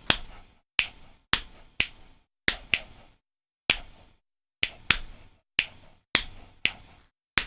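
Finger snaps and slaps on the thigh played together as a 5-against-4 polyrhythm: five evenly spaced snaps against four evenly spaced leg slaps in each cycle, the two landing together at the start of each cycle.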